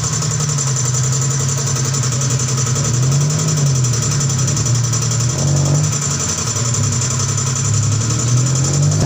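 A machine's motor running steadily, its low hum slowly wavering up and down in pitch.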